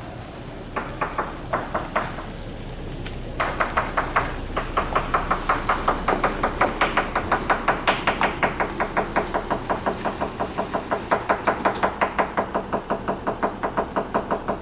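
A small hammer tapping the fiberglass hull of a catamaran, to sound it out for voids and delamination. A few separate taps come first, then from a few seconds in a steady rapid run of light taps, several a second, as the hammer moves along the hull.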